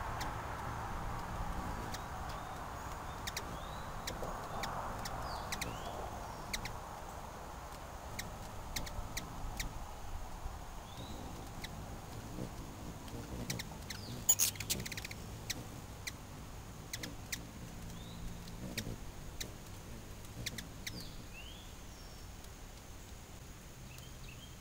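Outdoor ambience: a passing vehicle's noise fades away over the first several seconds, while short high bird chirps and sharp clicks come every second or so, with a louder cluster of clicks about halfway through.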